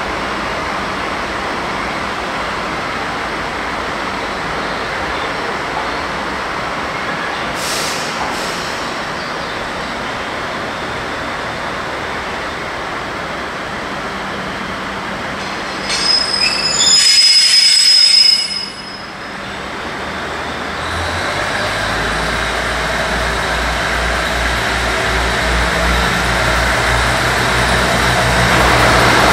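DD16 diesel locomotive, with its V12 diesel engine, idling under a steady low hum. About 16 seconds in comes a loud, high hiss of air with a whistling edge, lasting about two seconds. From about 21 seconds the engine throttles up, and a low, evenly pulsing throb grows louder to the end.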